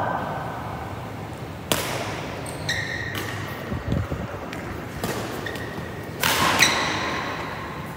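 Badminton rally: rackets striking the shuttlecock with sharp cracks, shoes squeaking on the court surface and footfalls thudding. The loudest hit comes about six seconds in, as the near player leaps into a jump smash.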